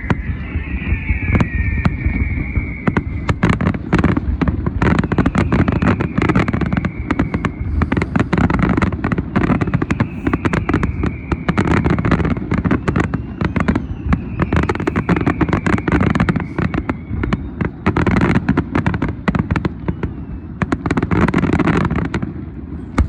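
Fireworks display: a dense run of bangs and crackling reports, with whistling shells sounding every few seconds and falling a little in pitch.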